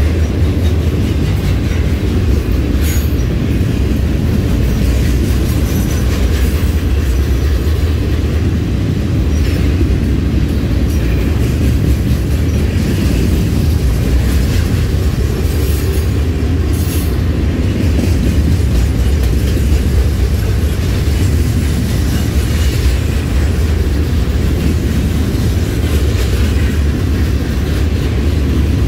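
RJ Corman freight train rolling past: a steady, loud rumble of wheels on rail, with a few sharp clicks and squeals from the wheels now and then.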